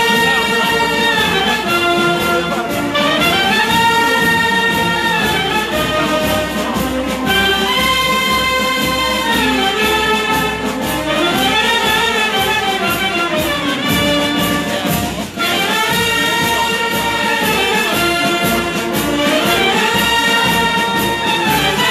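A marching wind band, clarinets and flutes to the fore with brass, playing a melody in phrases of a few seconds that rise and fall in pitch over a steady beat.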